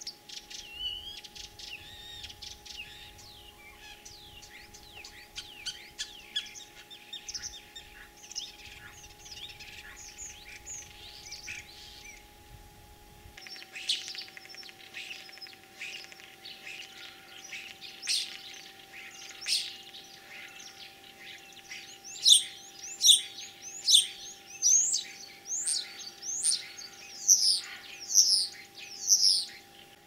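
Common starling singing: a fast, varied run of chatter, clicks and whistles, the varied song of this mimic. In the last several seconds come loud, sharp whistled notes, about one and a half a second.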